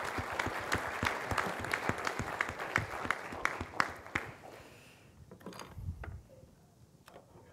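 Audience applauding, dying away after about four seconds. A few scattered light knocks and a dull thump follow.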